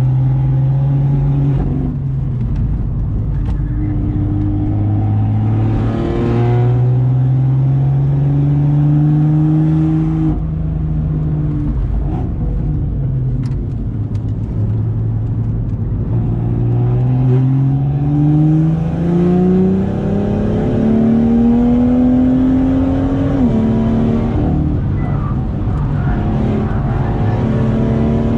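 Straight-piped BMW M2's turbocharged straight-six heard from inside the cabin under hard acceleration. The engine note climbs steadily through the revs and drops sharply at each upshift, three times, with a steadier, lower stretch in the middle.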